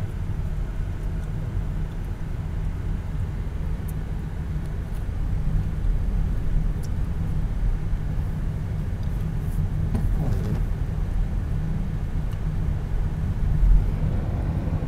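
Car cabin rumble from the engine and tyres while driving on a snow-covered road, with a brief low thump near the end.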